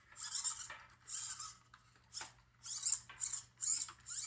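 A string of short, high squeaks and rubbing strokes, about seven in four seconds. They come from a partly built Reachy Mini robot being moved by hand in an obstruction test, which checks that its rerouted wires don't catch.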